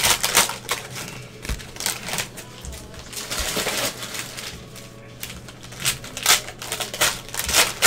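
Cellophane wrappers of trading card packs crinkling and crackling as gloved hands handle them and pull them open, with a thicker stretch of rustling about three seconds in.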